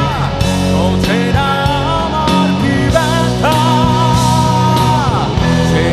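Live rock band playing: electric guitars, bass guitar and drums, with a male singer's long held, wavering notes over them.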